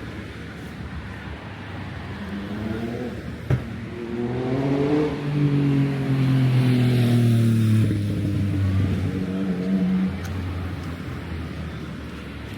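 A motor vehicle's engine passing close by on the road, growing louder and then falling in pitch as it goes past, over steady traffic noise. A single sharp click about three and a half seconds in.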